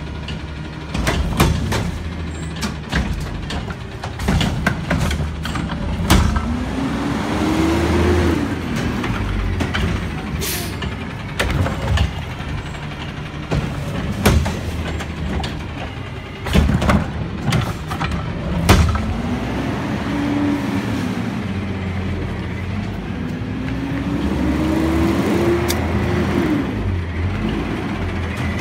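Garbage truck with a Curotto-Can cart arm emptying a wheeled cart: the engine runs up in pitch several times to drive the hydraulics, and the arm and cart clank and bang as the cart is lifted, shaken out and set back down.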